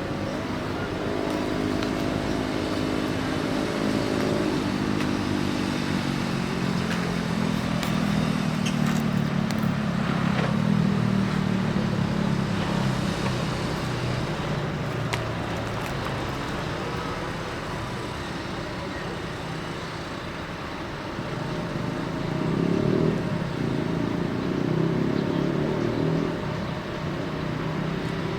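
Heavy-equipment diesel engine running under changing load. Its pitch sinks slowly over the first dozen seconds, then rises in two surges near the end.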